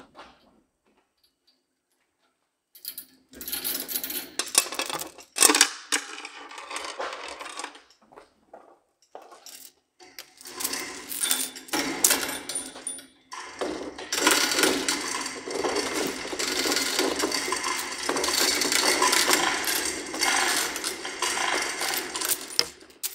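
Hand chain of a Yale 3-ton chain hoist clattering and clicking through the hoist as it is pulled by hand, with the tractor hanging from it. The rattling starts about three seconds in and comes in long runs with a few short pauses.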